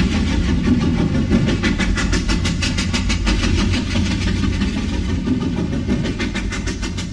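Steam locomotive chuffing in a rapid, even beat over a deep rumble, slowly getting quieter toward the end.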